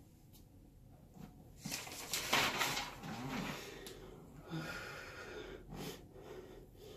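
A person's breathy exhalations, like huffing or sighing, loudest two to three seconds in, with a few soft taps.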